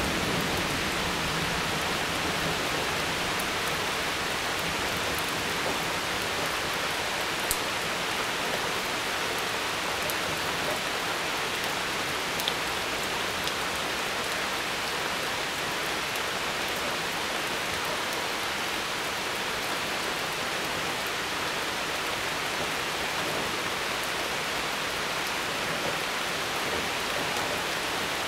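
Steady rain during a thunderstorm: an even hiss of falling rain, with a few sharp drop ticks now and then.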